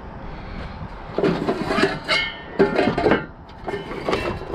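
Lumber and sheet-metal studs scraping and knocking against each other as debris is shifted in a steel dumpster, with a brief metallic ring about two seconds in.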